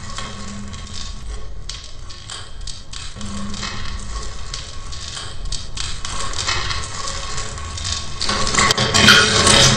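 Cartoon soundtrack: noisy sound effects over faint music, with a brief low tone twice early on, then a loud noisy burst near the end.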